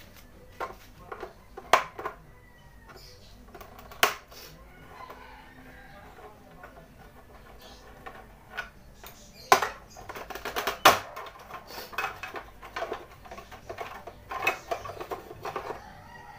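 Hand tools clinking and knocking on metal as the rear bolts of a Yamaha Mio Sporty scooter are undone: a few sharp single strikes, then a denser run of rattling clicks in the second half.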